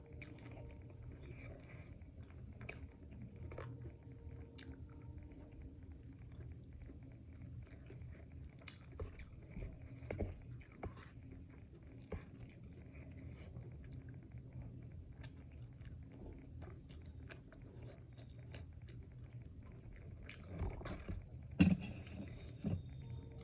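Close-up eating sounds: chewing and biting, with many small mouth clicks and one sharper click near the end, over a low steady hum.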